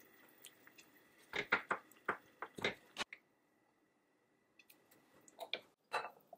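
Wooden spoon stirring thick oatmeal risotto with melting cheese in a saucepan: a quick run of short, soft scrapes and sticky stirring sounds, a pause, then a few more spoon scrapes against the pan near the end.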